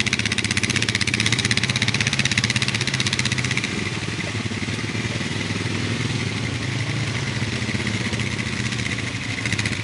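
Quad ATV engine running steadily, a little louder for the first few seconds, then settling.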